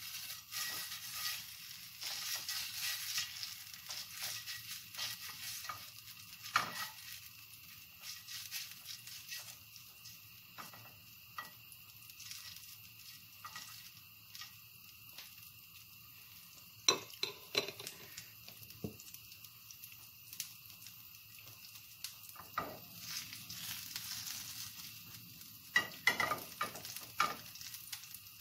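Butter sizzling and crackling as it melts in a hot frying pan, a steady hiss full of small pops. A few sharp knocks stand out, about halfway through and again near the end.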